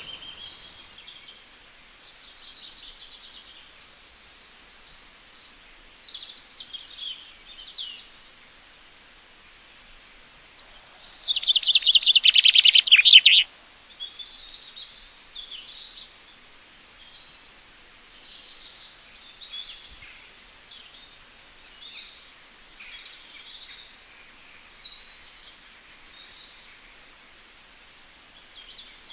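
Birds chirping and calling on and off, with one loud, rapid trill of quickly repeated high notes lasting about two seconds, a little under halfway through.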